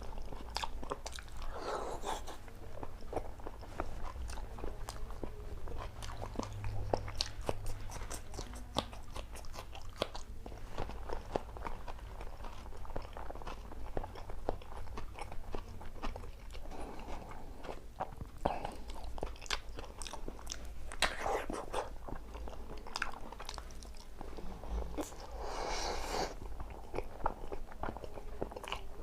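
A person eating close to the microphone: biting and chewing with many sharp crunches throughout, from a meal of boiled eggs, raw chillies and onion-tomato salad.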